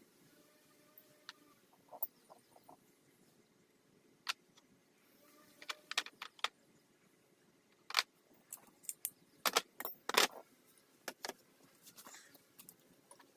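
Scattered, irregular light clicks and metallic clinks of tools and parts being handled during work on the dirt bike, with a louder clatter about ten seconds in.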